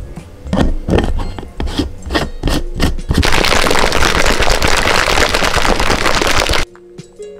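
Plastic shaker cup of protein powder shaken by hand: a few separate knocks and rattles, then about three and a half seconds of dense, loud rattling that stops abruptly near the end.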